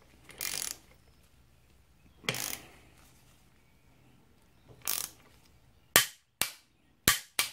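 Click-type torque wrench tightening a swingarm pivot nut: a few short ratcheting strokes, then several sharp clicks close together from about six seconds in as the wrench reaches its set torque of 68 newton metres.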